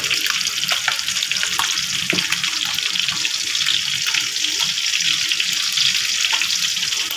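Pieces of fish frying in oil in a pan: a steady sizzle with many small crackles and pops.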